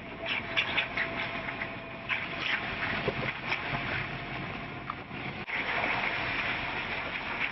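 A vehicle on the move: steady running and tyre noise with scattered clicks and rattles, changing abruptly to a louder, denser rush about five and a half seconds in.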